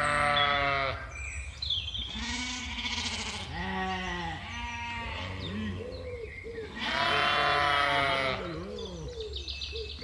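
Animals bleating: long, wavering calls near the start, a couple of seconds in and again from about seven seconds in, with shorter, lower calls in between.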